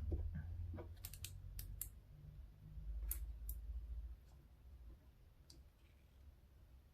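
Light, sharp clicks and ticks of metal tweezers handling fine wires at a solder joint, a quick cluster of five about a second in, then a few more spaced out, over a faint low hum that drops away about four seconds in.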